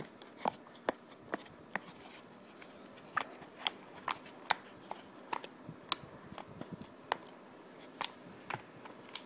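Freshly made white milk-recipe slime being poked and squeezed close to the microphone, giving off irregular sharp little pops and clicks, two or three a second.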